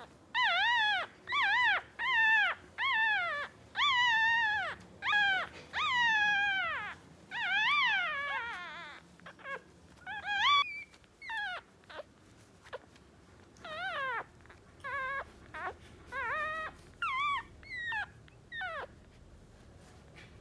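Two-day-old West Highland White Terrier puppy crying: a close run of high, rising-and-falling cries for the first nine seconds or so, then shorter, more spaced-out cries that stop shortly before the end.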